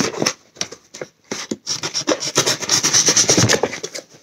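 Cardboard shipping box being opened by hand: flaps rubbing and scraping, a few scattered scratches at first, then about two seconds of dense, rapid scratching.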